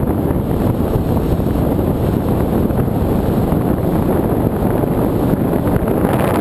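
Steady rushing airflow buffeting the microphone of the camera riding on a Bixler foam RC plane in flight.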